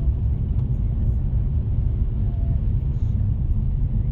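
Steady low rumble of a car heard from inside its cabin, the engine and running noise of a car sitting in slow snow-bound traffic.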